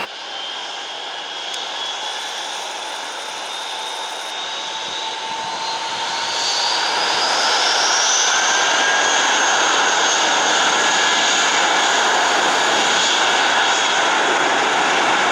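Boeing 737-800's CFM56 jet engines spooling up for takeoff: a whine rises in pitch over the first several seconds as the engine noise grows louder, then both hold steady at high thrust.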